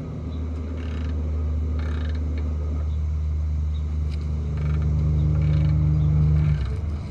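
Diesel truck engine braking (Jake brake): a steady low drone that grows louder past the middle and cuts off shortly before the end.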